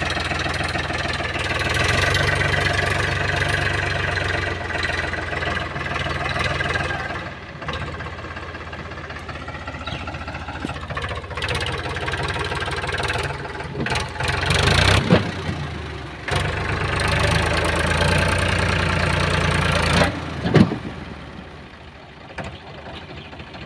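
Powertrac Euro 50 tractor's diesel engine working hard under load, its rear wheels stuck in deep mud with a loaded trailer behind; the engine note rises and falls as the driver tries to pull out. Two sharp, loud bangs stand out about five seconds apart in the second half, and the engine drops quieter near the end.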